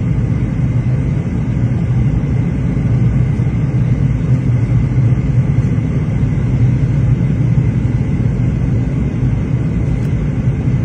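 Airliner cabin noise during takeoff: a steady, loud low rumble of the jet engines and airflow heard from inside the cabin, with a faint steady high whine above it.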